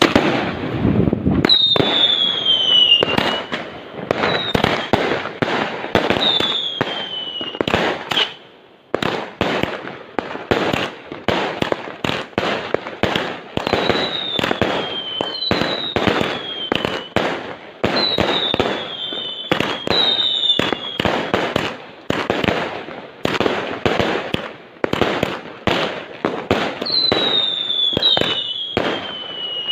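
Fireworks going off in rapid, dense bangs and crackles, with a falling whistle every few seconds from whistling shells. There is a brief lull about eight seconds in.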